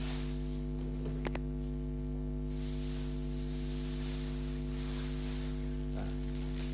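Steady electrical mains hum with a buzzing stack of overtones, and a faint tick about a second in.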